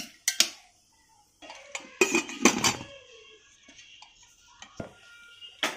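A metal spoon clinks against a steel pressure-cooker pot, then the cooker's metal lid clatters and knocks as it is fitted on, loudest about two seconds in, with a few lighter clicks after and another knock near the end.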